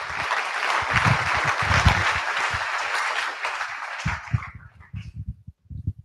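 Audience applauding, the clapping dying away about four and a half seconds in, followed by a few scattered low knocks.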